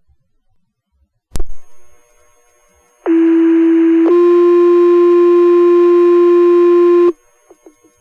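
Fire dispatch two-tone page over the radio: a one-second tone about three seconds in, then a slightly higher tone held for about three seconds, setting off the fire station's volunteer pagers. A brief radio click comes about a second in.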